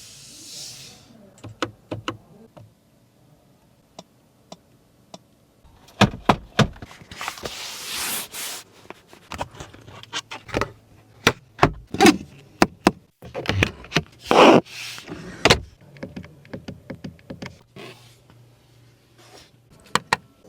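A Mercedes-AMG C43's doors and interior controls working: a long series of clicks, knocks and thunks, some close together, with a couple of longer rustling movements, over a faint low hum.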